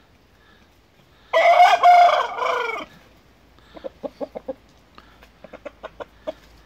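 Shamo gamefowl rooster crows once, loud and about a second and a half long, followed by a run of short quick clucks, about four a second.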